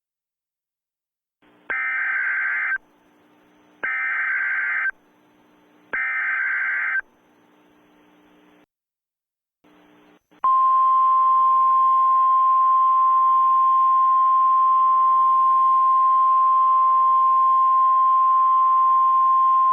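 Emergency Alert System header: three one-second bursts of warbling digital data tones, a second apart, with faint hiss between. Then, about ten seconds in, a single steady attention tone near 1050 Hz, the NOAA weather-radio style alert tone, starts and holds.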